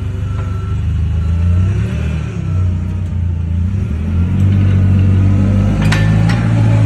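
Forklift engine running and revving up as the forklift moves, with two sharp knocks near the end.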